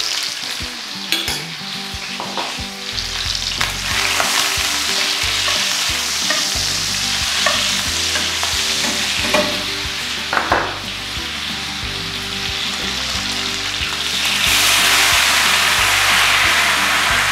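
Pork loin trimmings frying and sizzling in butter in a pan, stirred with a utensil that knocks and scrapes against the pan a few times. About three-quarters of the way through, the sizzle grows louder and stays up as white wine is poured in to deglaze the hot pan.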